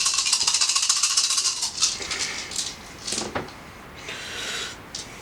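A handful of dice rattling fast as they are shaken for about two seconds, then a few separate clacks as they drop and tumble on the table.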